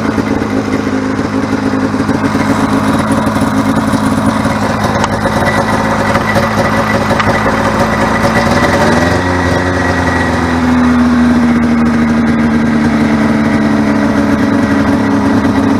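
Snowmobile engine running while the sled rides across the snow, heard from on board. About nine seconds in the engine note rises as it revs up, then holds at the higher pitch.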